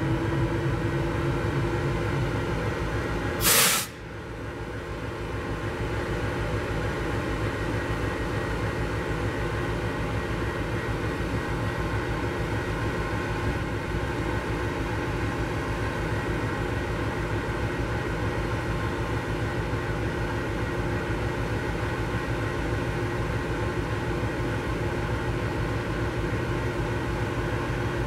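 An engine runs steadily with several pitched hums, one rising in pitch in the first second. About three and a half seconds in, a brief loud hiss-like burst cuts through.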